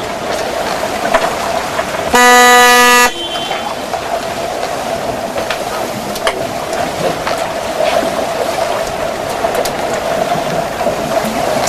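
A referee's signal horn sounds one loud, steady blast of just under a second, about two seconds in. Around it is the steady hiss of underwater pool noise with scattered faint clicks.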